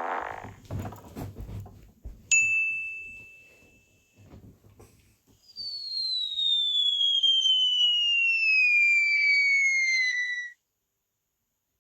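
Played-back sound effects: a short noisy rumble, then a single bright ding that rings and fades for about a second. Then a long whistle falls steadily in pitch for about five seconds and cuts off suddenly.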